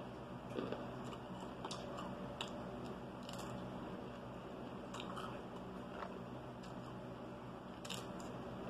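A person chewing and biting food close to the microphone, with scattered short crunches every second or so over a steady low hum.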